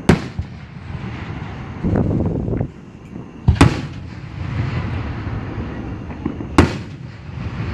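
Aerial firework shells bursting: three sharp booms, about three seconds apart, with a rumbling noise in between. The booms sound cannon-like because they echo around the wooded hollow of the fairgrounds.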